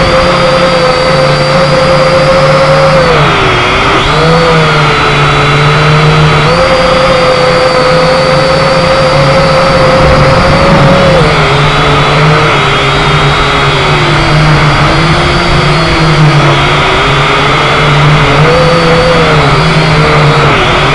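Syma X5HC quadcopter's four brushed motors and propellers whining in flight, close to the onboard camera's microphone. The pitch falls and climbs back several times as the throttle changes.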